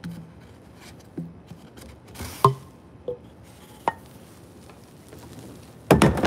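Cardboard tubes being handled, giving a few hollow knocks and sharp taps, then a louder clatter near the end as a tube drops into a plastic wheeled trash bin.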